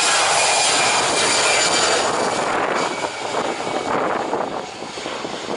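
Airbus A320-200 jet engines at takeoff thrust during the takeoff roll, a loud steady jet noise that weakens after about two and a half seconds.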